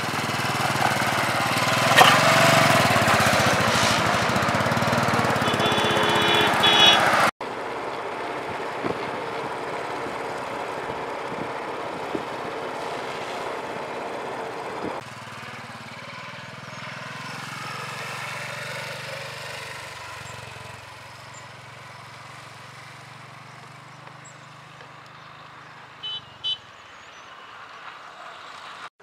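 Motorcycle carrying two riders running along a rough road, its engine and road noise loud for the first seven seconds, then dropping suddenly twice and growing fainter. Short horn beeps come around six seconds in and twice near the end.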